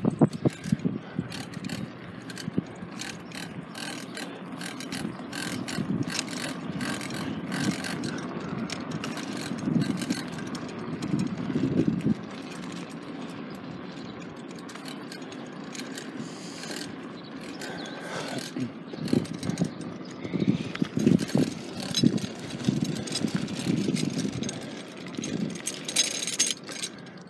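Bicycle in motion: freewheel ratchet ticking and chain and frame rattling, with many irregular clicks over an uneven low rumble.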